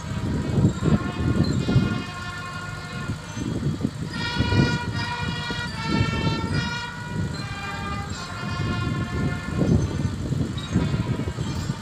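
A horn-like tone playing a run of held notes that step up and down in pitch, clearest in the middle, over a gusting low rumble.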